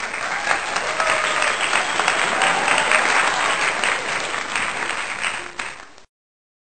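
A crowd applauding, a dense patter of many hands clapping, which stops abruptly about six seconds in.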